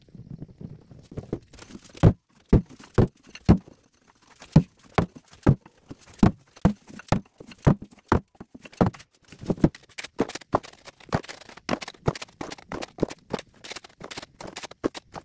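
Loaded steel wheelbarrow with cut stone blocks being pushed over rough, stony ground: sharp clunks about two a second, with the blocks knocking in the tray and footsteps. The knocks turn quicker and lighter in the last few seconds.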